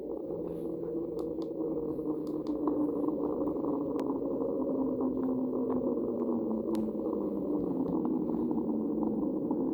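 Made-up creature call for Platecarpus, an extinct mosasaur: a continuous low, muffled rumble with a slowly falling pitch, and a few faint clicks.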